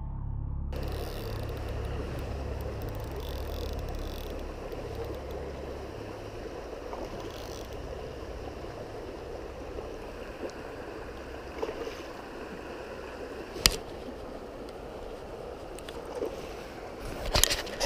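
River water flowing steadily, with low background music fading out in the first few seconds. A sharp click sounds once in the middle and a few more near the end.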